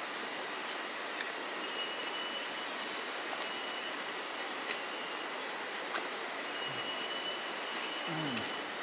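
Steady rushing of river water, with insects keeping up a thin, high, steady whine and a second higher call that comes and goes. A few faint sharp clicks and a short low falling sound near the end.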